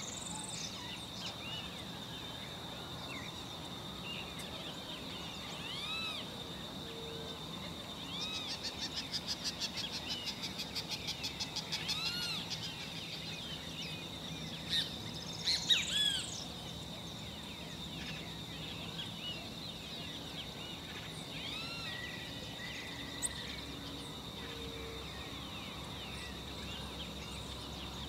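Campo flickers calling: scattered short calls, a rapid run of sharp notes lasting about four seconds from around eight seconds in, and a few louder calls a little after the middle, over a steady high-pitched tone.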